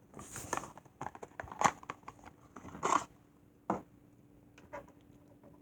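Handling noises from a plastic toy doll and its packaging: a run of rustles, clicks and scrapes, with a sharp knock a little past the middle and a last small click near the end.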